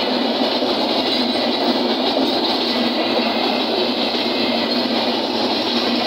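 Bangladesh Railway intercity passenger coaches rolling past at close range: the loud, steady noise of their wheels running on the rails.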